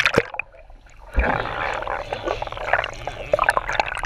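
Pool water splashing against a camera at the surface as a dog swims close past, with sharp splashes at first. About a second in, a steady churning of water takes over and runs until near the end.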